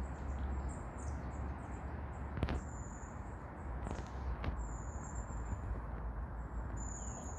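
Small birds chirping, short high chirps and trills repeating, over a steady low outdoor rumble, with one sharp click about two and a half seconds in.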